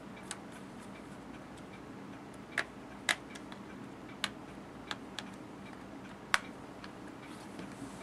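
Scattered light clicks and ticks, about eight at irregular intervals, from a small screwdriver turning a screw and the laptop's plastic back cover being pressed and snapped into place, over a faint steady hum.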